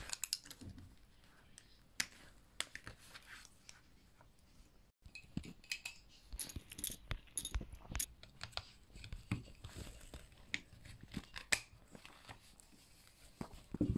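Small plastic Mega Construx building bricks being handled and pressed together by hand, giving irregular sharp clicks and snaps with light rattling of loose pieces.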